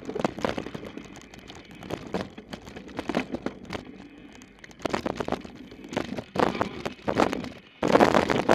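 Santa Cruz Demo downhill mountain bike clattering and rattling as it is ridden fast down a rough dirt trail, with tyres on dirt and irregular knocks from the frame and chain. It gets much louder about eight seconds in.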